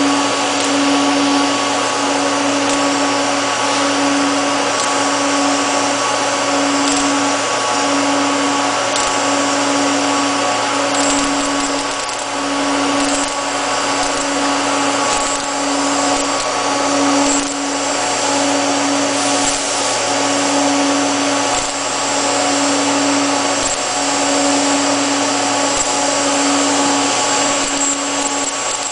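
Automated hot-wire TIG welding station running while welding a carbon steel pipe elbow: a steady mechanical whir and hiss, with a low hum that swells and breaks about once a second.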